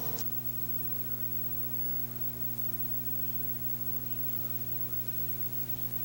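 Steady electrical mains hum: a low buzz made of several even, unchanging tones over a faint hiss.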